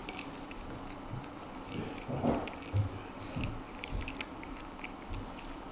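Cat eating from a ceramic bowl: soft chewing, with small irregular clicks and a few dull thumps.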